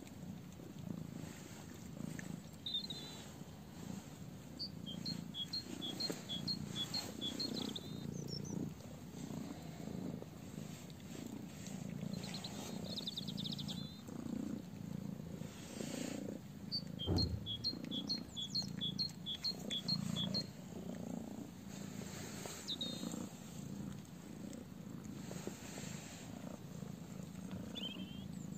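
Domestic cat purring close by, a continuous throbbing low rumble. Behind it a small songbird sings two runs of evenly repeated notes alternating between two pitches, with a few short chirps in between.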